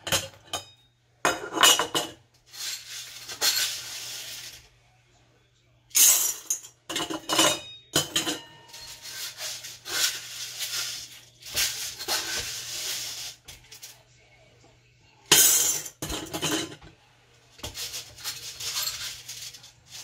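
Dry beans scooped with a metal measuring cup and poured through a stainless steel funnel into glass canning jars: bursts of rattling beans on metal and glass, with clinks of the cup on the funnel, repeated several times with short pauses.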